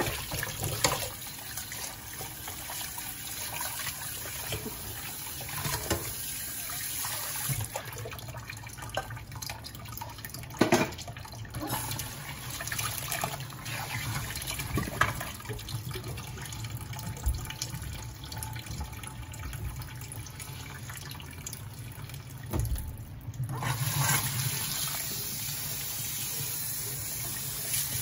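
Kitchen tap running into a stainless steel sink during hand dishwashing, a steady rush of water with occasional sharp knocks and clatter of dishware against the sink.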